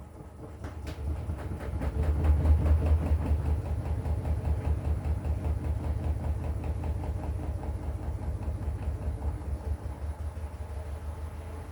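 Washing machine drum starting to turn: a click about half a second in, then a low rhythmic rumble with a quick regular beat that builds over two seconds and slowly eases off.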